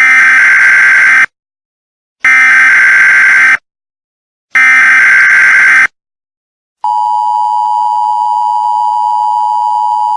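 Emergency Alert System tones, loud. Three buzzy bursts of the SAME digital header, each a little over a second long with about a second's gap between them. Then, about seven seconds in, the steady two-tone EAS attention signal begins and holds.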